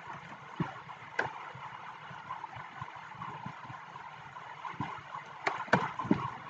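Computer keyboard keys clicking now and then, a handful of separate taps over a steady background hiss; two sharper clicks come close together near the end.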